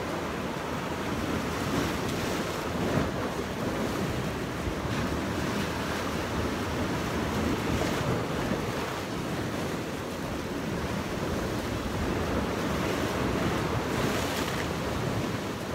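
Sea waves washing and breaking against the shore rocks, a continuous surf wash with louder splashes now and then, the biggest near the end. Wind buffets the microphone.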